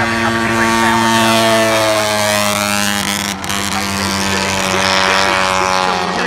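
Racing motorcycle engine running hard, its pitch easing slowly downward, with a brief break about three and a half seconds in.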